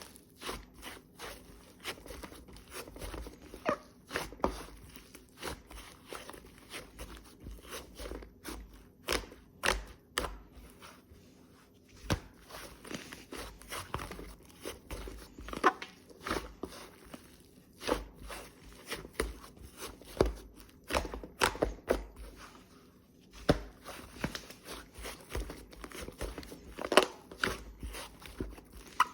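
White slime being pressed, poked and squished by hand, making irregular sharp clicks and small pops, several a second at times with short lulls.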